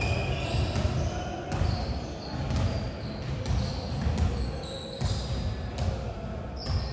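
Basketballs bouncing on a hardwood gym court in repeated irregular thuds, with short high sneaker squeaks from players moving on the floor.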